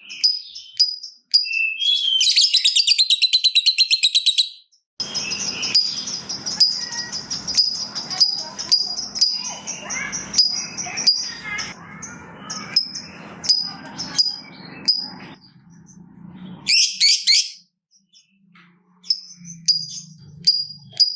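Lovebirds calling: rapid, sharp, high ticking calls ('ngetik') and a long fast chattering trill ('ngekek') about two seconds in. A long stretch of busier chirping over a rough noisy background follows, then a brief trill and the ticking resumes near the end.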